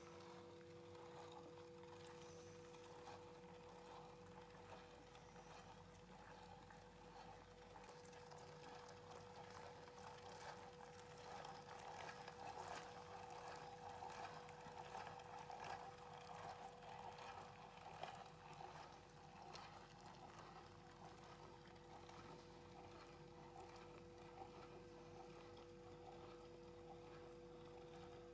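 Faint turning and squelching of a hand-cranked metal meat grinder mincing onion, with scattered light clicks, over a steady faint hum.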